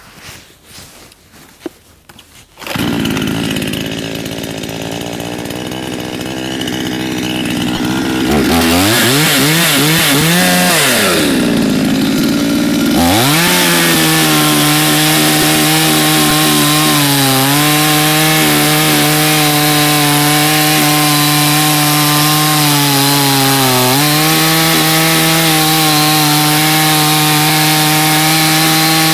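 AL-FA ALGC49 budget two-stroke petrol chainsaw starts running a few seconds in and idles. It is revved up and down several times, then holds high revs cutting into a spruce log of about 20–25 cm under the saw's own weight, the pitch dipping briefly twice as it takes the load.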